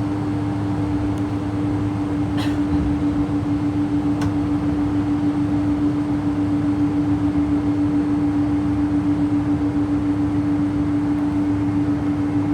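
Steady drone inside the cabin of a Boeing 777-200 waiting on the ground before take-off, with one constant hum tone over a hiss. Two faint clicks come about two and four seconds in.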